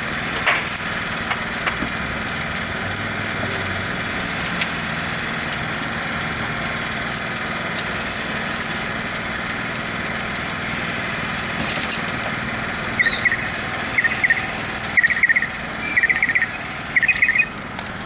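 Room-sized fire in a furnished burn cell burning steadily, flames venting out the doorway, with continuous crackling and snapping of burning wood and furnishings over a steady mechanical hum. Near the end come several quick groups of short high chirps.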